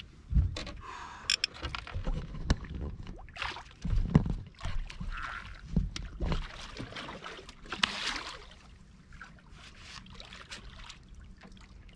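Irregular knocks, thumps and handling noises in a fishing boat, with a few short hisses in between; the heaviest thumps come about half a second and four seconds in, and it grows quieter over the last few seconds.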